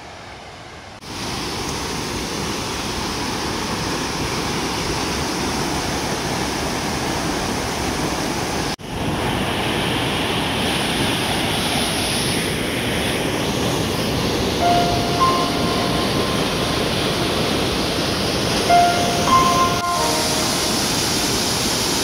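Alpine mountain stream rushing loudly through rapids and over a waterfall, a steady roar of white water with a brief break about nine seconds in. Near the end a few short, steady high-pitched notes sound faintly over the water.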